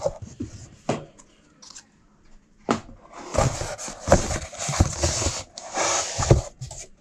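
Cardboard scraping and rubbing against cardboard as hands work a box out of a corrugated shipping carton: a knock about a second in, a short quiet pause, then a sharp knock followed by a few seconds of continuous scraping and small bumps.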